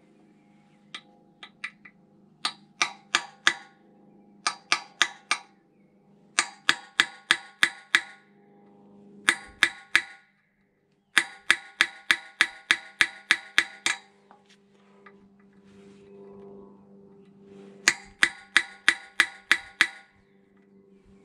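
Hammer tapping on a tool held against the steel housing of a log splitter, in quick runs of sharp metallic strikes, about four or five a second, with short pauses between runs and a ring from the metal after the blows.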